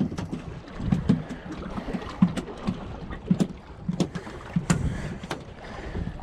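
Irregular knocks and taps on a fiberglass boat, about one every half second to second, over a steady low wash of wind and water.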